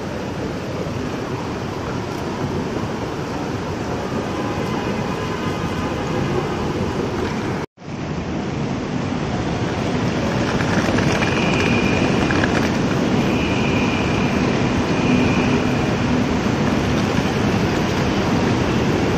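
Steady rumble and rush of a moving train. The sound cuts out for an instant about eight seconds in, then carries on a little louder.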